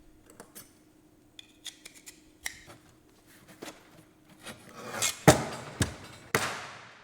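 Steel frame profiles and corner pieces of a flexible duct connector clicking and knocking together as the corners are fitted into the frame. Small metallic taps come first, then several louder knocks with a short ring about five seconds in.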